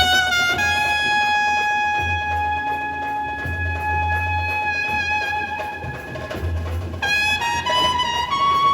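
Dhumal band saxophones playing a sawari dhun: one long held note for about five seconds, then a climb in short steps to a higher held note near the end, over recurring low drum beats.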